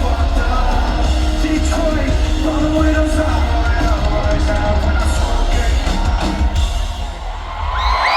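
Live rock music over a concert sound system, heavy bass under shouted vocals. Near the end the music drops away and the crowd starts screaming.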